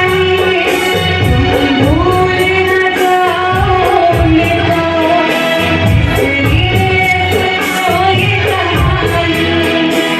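A girl singing a Hindi patriotic song (desh bhakti geet), with long held, gliding notes over a backing track with a steady rhythmic beat.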